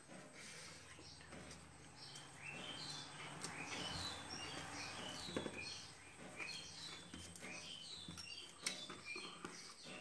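Small bird chirping: a quick run of short, falling high notes starting a couple of seconds in. Faint clicks of hands eating rice off steel plates sound underneath.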